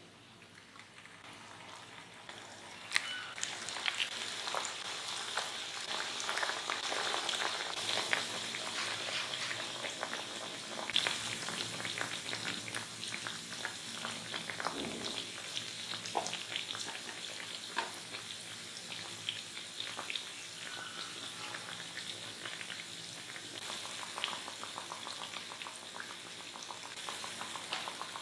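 Potato pieces deep-frying in hot oil: a steady sizzle thick with small crackling pops. It starts faint and builds over the first few seconds as the pieces go into the oil.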